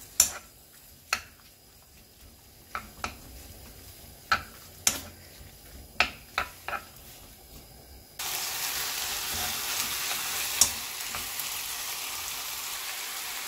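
Sliced pork frying in a coated frying pan and being stirred with a spatula so its fat renders out. At first the spatula clicks and scrapes against the pan now and then over a faint sizzle. About eight seconds in, a steady, louder sizzle starts suddenly.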